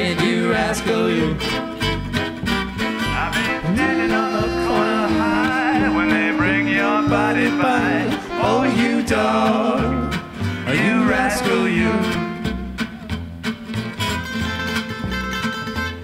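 Gypsy jazz band playing live: acoustic guitars strumming a swing rhythm over a plucked upright bass, with voices singing in harmony through the middle and the band carrying on instrumentally near the end.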